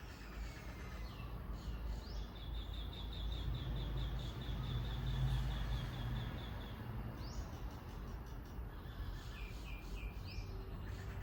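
Small birds calling: a fast, even run of short high chirps lasting a few seconds, then a couple of sweeping falling calls and a short run of lower chirps near the end, over a steady low background rumble.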